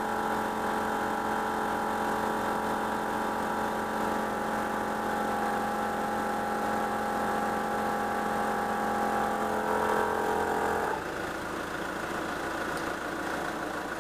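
DR Air Pro Flow 12V air compressor running steadily with a constant whine as it inflates a tyre. It is switched off about eleven seconds in, leaving the Nissan Patrol's 3-litre ZD30 diesel engine idling.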